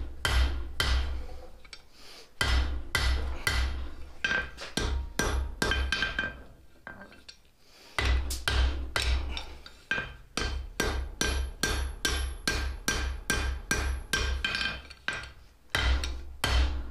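Blacksmith's hand hammer striking a hot half-inch round steel bar on the anvil, forging the end into a small ladle bowl. The blows come in runs of about three a second, each with a short metallic ring, broken by brief pauses, the longest a little before the middle.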